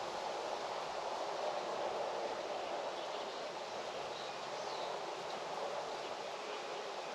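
Steady rushing outdoor background noise, with a few faint high chirps about four seconds in.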